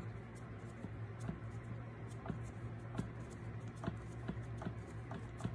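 Scattered faint clicks and small metal scrapes of a screwdriver turning the oil pump screws by hand on a Stihl MS460 chainsaw, over a low steady hum.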